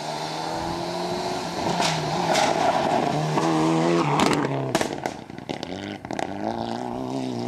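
Rally car on a gravel stage accelerating past close by, its engine revving hard with pitch steps through gear changes, loudest as it goes by, followed by a run of sharp cracks as it passes.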